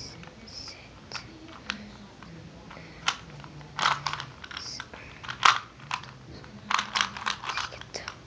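Plastic Rubik's cube being twisted by hand: irregular sharp clicks and clacks as the layers turn, some single and some in quick clusters.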